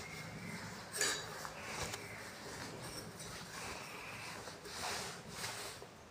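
Plastic long-body tap being screwed by hand onto a plastic wall nipple: soft rubbing and clicking of plastic on plastic, with a sharper knock about a second in.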